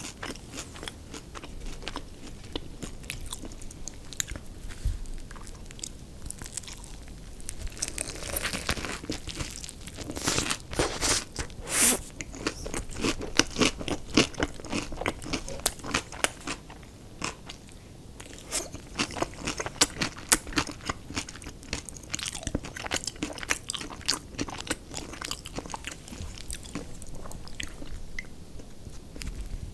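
A person biting and chewing crispy fried fast food close to the microphone, with a dense run of crunches that is busiest about a third of the way in.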